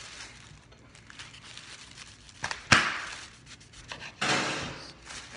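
Kitchen knife cutting through a raw yam on a wooden cutting board: a sharp knock as the blade comes down on the board about two and a half seconds in, and a rasping sawing cut through the yam near the end.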